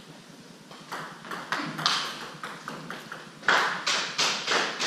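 Table tennis ball clicking off the table and bats, a few scattered clicks and then a quicker run of about three a second from about three and a half seconds in, ringing in a large hall.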